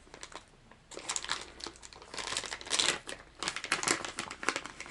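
Crinkling and crackling of a clear plastic soft-bait package as it is handled and opened by hand, in a run of rustles starting about a second in.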